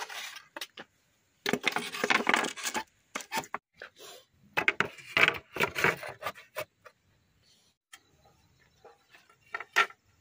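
Split bamboo slats clattering and knocking against each other and against the bamboo frame as they are handled and laid in place. Two dense runs of clatter come in the first seven seconds, then scattered knocks with one sharp knock near the end.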